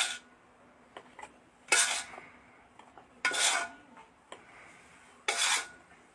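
Metal spoon clinking and scraping against a steel bowl and a glass bottle as mushroom powder is spooned into the bottle: a short clink at the start, then three longer scrapes about every second and a half, some with a faint ring.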